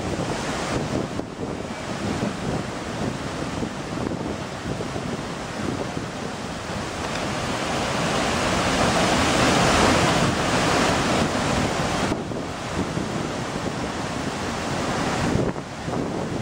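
Waterfall rushing steadily into its plunge pool, swelling louder about halfway through, with wind buffeting the microphone.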